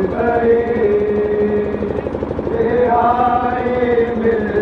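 Men's voices chanting a noha, a Shia mourning lament, in long held notes that step up and down.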